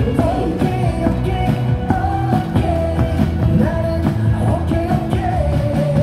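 Rock-style baseball cheering song with singing, played loud over a ballpark's loudspeakers to a steady drum beat.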